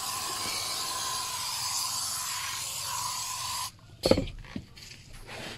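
Aerosol spray can hissing in one long burst of about four seconds, then cutting off abruptly; a thump follows about half a second later.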